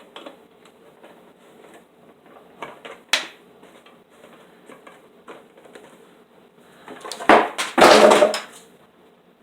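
Parts of a bird feeder being handled and snapped together: scattered light clicks and knocks, then a louder stretch of rattling and scraping about seven to eight and a half seconds in.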